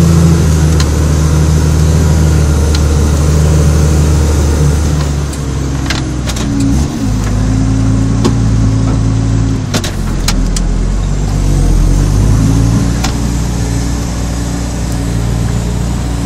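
Case IH Puma 155 tractor's six-cylinder diesel running steadily under ploughing load, heard from inside the cab. Its pitch drops about five seconds in and shifts again later, with scattered sharp ticks and knocks.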